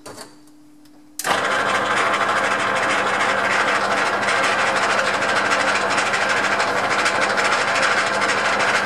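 Metal lathe switched on about a second in, its motor and spindle then running steadily.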